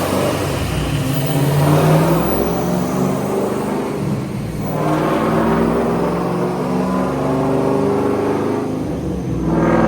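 Cammed 5.7-litre LS1 V8 with a BTR Stage 3 camshaft and long-tube headers idling with an uneven, wavering note. The engine swells briefly about halfway through and again near the end.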